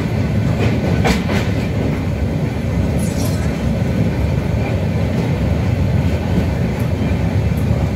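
Train running over a steel girder bridge, heard from aboard: a steady low rumble with a few sharp wheel clicks, two close together about a second in and another near three seconds.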